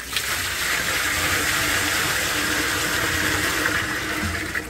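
Water pouring from a 5-gallon plastic bucket into a large vat, a steady gush that starts suddenly and tails off near the end.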